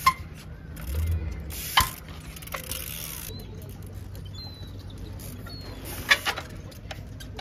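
Trials bike hopping and landing: a few sharp knocks of tyres and frame hitting concrete and stone, the loudest just after the start, near two seconds in and a double one about six seconds in.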